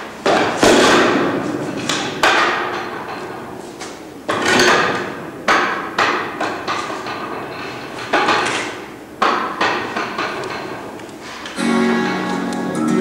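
Slow, irregular loud strikes, about one a second, each ringing out with a long echo in a large hall. Plucked guitar music begins near the end.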